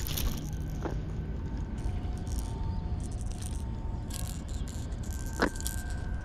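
Light rattling and clicking from handling a small jack held in a metal fish lip-grip tool, the lure and its hooks jingling, over a steady low rumble. One sharper sound comes about five and a half seconds in.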